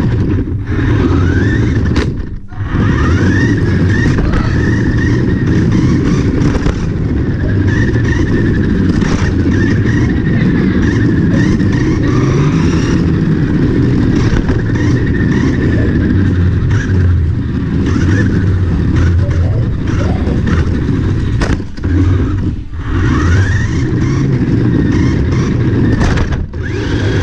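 Small electric motor and gears of a cheap Yamaha YXZ toy RC car whining, the pitch rising and falling as it speeds up and slows. Under the whine is a loud rumble of its wheels rolling over a hardwood floor, heard close up from a camera riding on the car. The sound drops out briefly a few times.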